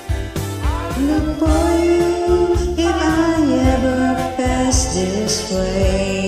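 Music: a karaoke backing track with a voice singing long held notes over it.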